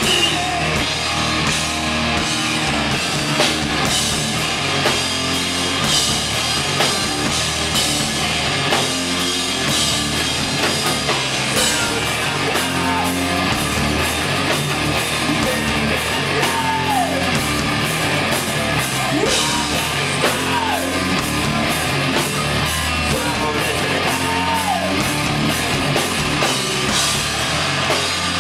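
Live rock band playing loud and hard: a drum kit pounding a steady beat under electric guitar, with several sliding bends in the guitar line.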